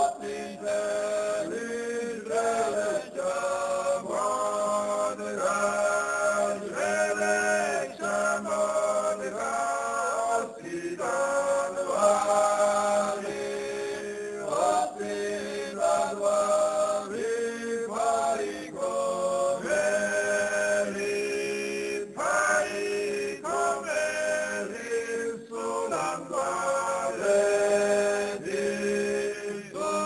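Male voices singing in several parts over a steady held drone note, phrases changing pitch every second or so: a chant-like choral song.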